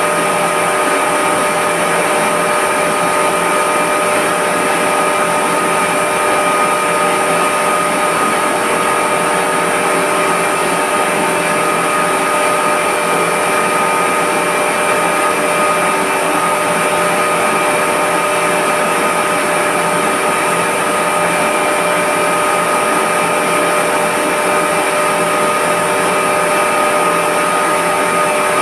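Reverse osmosis plant's electric-motor-driven high-pressure pump running: a loud, steady machine hum with several fixed whining tones over an even hiss.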